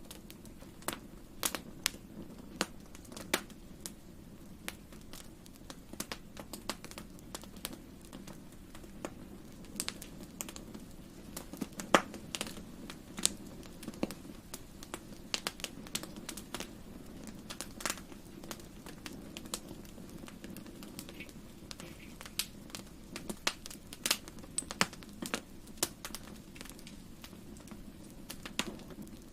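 Wood fire crackling in a fireplace: irregular sharp pops and snaps over a low, steady rush of flame, with one louder pop about twelve seconds in.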